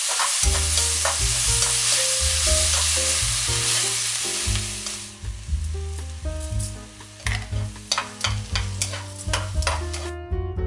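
Food stir-frying in hot oil in a frying pan: a loud, even sizzle for the first half that fades about five seconds in, then sharp clicks of the utensil against the pan as it is stirred. Soft background music plays underneath.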